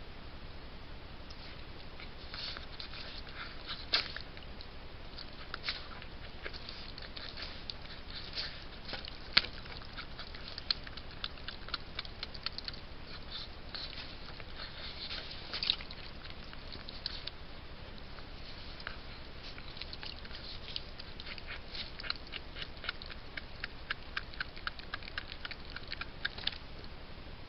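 A fisher chewing and tearing at a trapped beaver's carcass: irregular sharp clicks and crackles, sometimes in quick runs, over a steady hiss.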